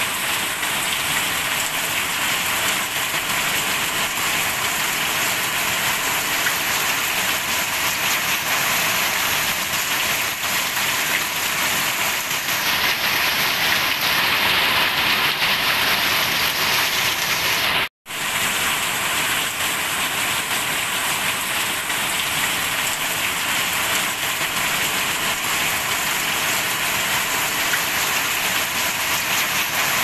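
Steady rain falling, an even hiss of drops on leaves and ground. The sound cuts out for an instant about two-thirds of the way through, then resumes.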